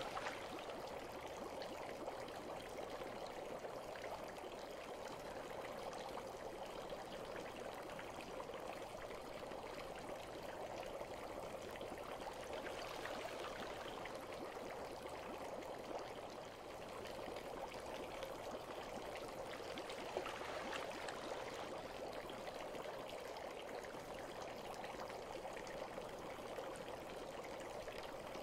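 Bath water trickling steadily, an even, continuous running-water sound without pauses.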